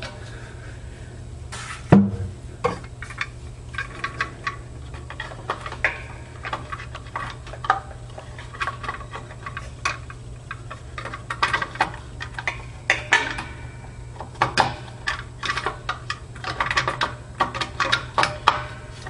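Irregular metallic clicks, taps and knocks of an electrical box and its cover being handled and bent back into line, with one sharp knock about two seconds in. A steady low hum sits underneath.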